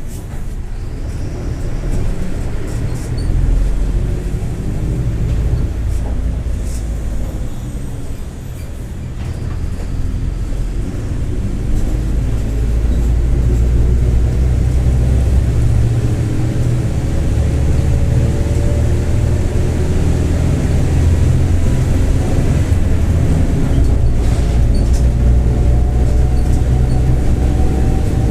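Mercedes-Benz OF-1721 BlueTec 5 bus, its diesel engine pulling as the bus gathers speed. A growling whine from the differential climbs in pitch through the second half.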